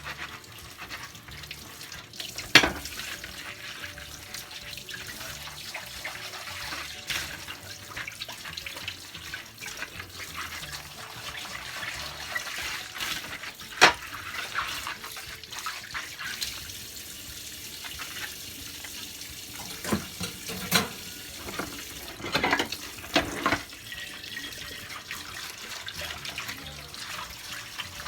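Kitchen tap running into a sink during hand dishwashing, with scattered sharp clinks of dishware knocking together.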